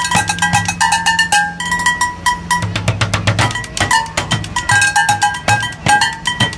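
Street percussion played with sticks on upturned plastic water-cooler jugs, wooden bar stools and metal dog pans: a fast, dense drumming pattern with short ringing metallic tones among the strikes.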